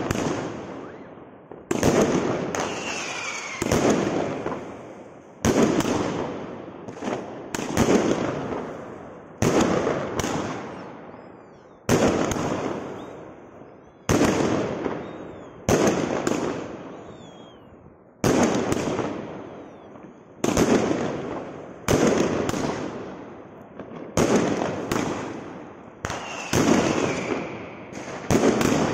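Compound firework cake firing shot after shot, a sharp bang every one and a half to two seconds, each followed by the fading hiss and crackle of strobe-star bouquets bursting overhead.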